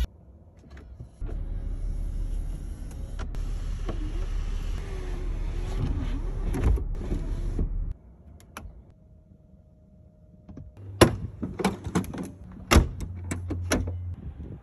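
An electric convenience motor in a 2006 Mercedes-Benz S-Class W220 runs steadily for about six seconds, then cuts off suddenly. A few seconds later comes a quick run of sharp clicks and knocks.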